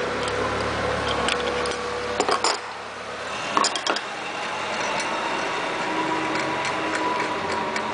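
Scattered light metallic clicks and taps, with small clusters about two and a half seconds in and again around three and a half to four seconds, as a C722 hand installation tool is unthreaded and pulled off a freshly set 3/8-16 Plusnut blind rivet nut. A steady background hum runs underneath.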